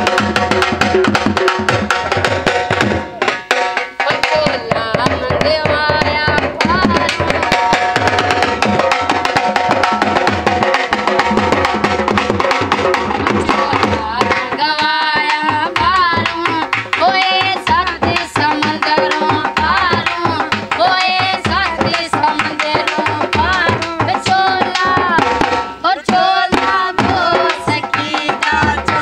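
Dhol drums beaten with sticks in a fast, driving folk rhythm, with a wavering melody line carried over the beat.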